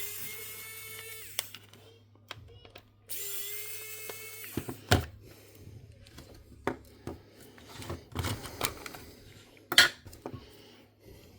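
Small electric screwdriver runs twice, about a second and a half each, its whine falling as it stops, fastening small screws. Then light clicks and knocks of small parts being handled.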